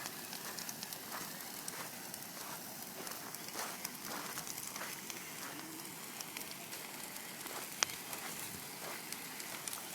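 Campfire crackling and hissing, with scattered small pops and one sharper pop near the end.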